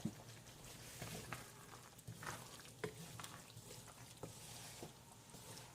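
Faint stirring of a simmered sauce in a pan, with a few soft scrapes and clicks of the utensil against the pan.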